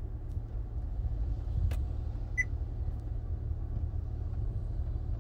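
Steady low rumble of a car standing still with its engine running, with a single click about 1.7 seconds in and a short high electronic beep about a second later.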